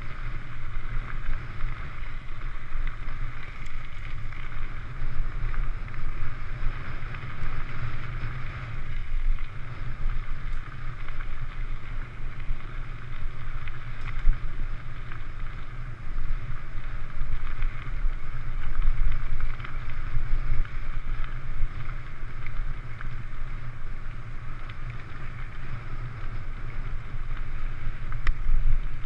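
Steady wind buffeting the microphone, with the rumble of mountain bike tyres rolling along a gravel road.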